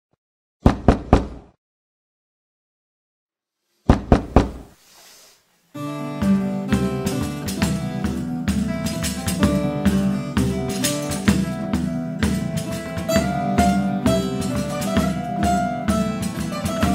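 Two short groups of three or four quick knocks, then from about six seconds in an Apulian folk tune played on acoustic guitar, mandolin and frame drum, with a steady beat.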